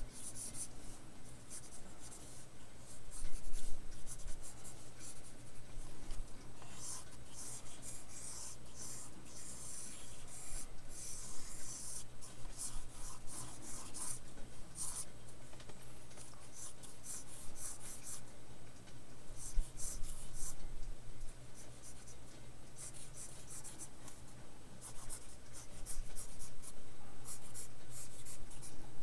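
Blue pencil sketching on drawing paper: runs of quick scratching strokes, busiest about a quarter to half of the way through, over a low steady hum.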